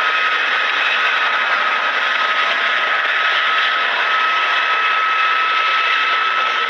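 Bell 47 helicopter running steadily: a constant engine drone with a thin, steady whine on top.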